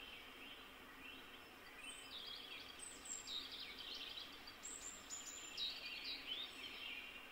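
Faint songbird song over a quiet outdoor background, with a busy run of quick, high, downward-sweeping chirps from about two seconds in.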